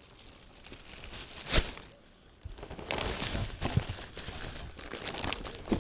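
A cardboard box and the tissue paper packed inside it being handled. A sharp knock comes about a second and a half in, then a run of irregular rustling, crinkling and tapping.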